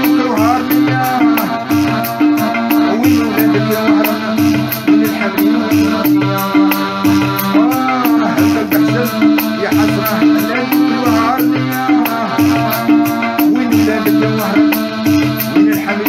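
Piano accordion playing a wahrani (Oran-style) song with a man singing, over a steady beat: a low note pulsing about twice a second and a regular rattle in the highs.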